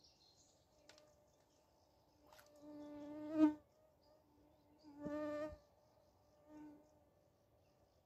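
A flying insect buzzing close by, swelling and fading three times as it passes, loudest about three and a half seconds in.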